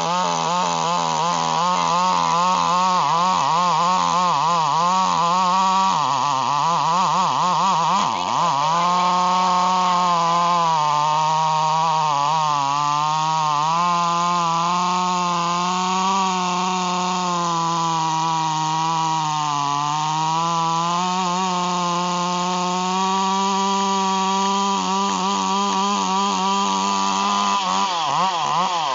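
Chainsaw running at full throttle as it cuts through a big log, its pitch wavering and sagging as the chain bites and then recovering. It drops sharply twice, around six and eight seconds in.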